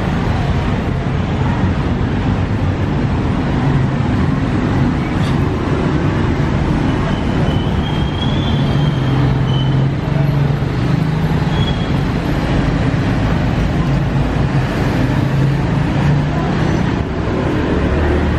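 Steady street traffic noise: vehicle engines running and passing on a busy road, with a continuous low hum.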